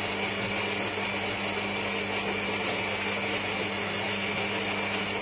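Philips fully automatic coffee machine starting up after a drink is selected: a loud, steady motor whir with a low hum that comes on abruptly.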